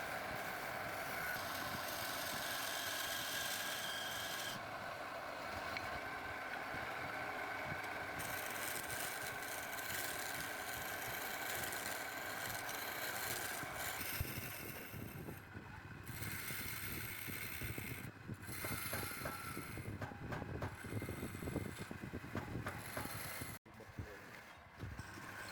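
Wood lathe running, with steady tones for the first part; about fourteen seconds in the sound turns choppier and more uneven, and it drops out for an instant near the end.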